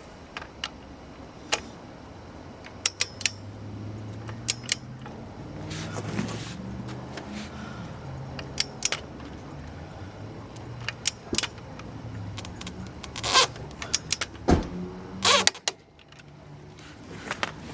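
Irregular metallic clicks and clinks of a torque wrench on a 21 mm socket tightening a scooter's rear axle nut, with a few louder clacks near the end, over a faint low hum.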